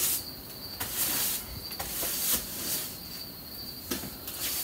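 Stiff bristles of a long-handled brush scrubbing dust and debris off a weathered window frame and siding, in several short rasping strokes. A steady high-pitched tone, like an insect, runs underneath.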